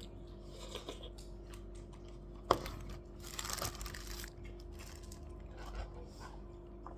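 A person eating at a table over a faint steady hum: one sharp click about two and a half seconds in, then about a second of crunching.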